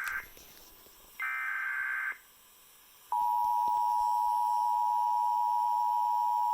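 Emergency Alert System tornado warning tones. The end of one SAME digital header screech, a second one-second screech about a second in, then about three seconds in the steady two-tone EAS attention signal starts loud and holds.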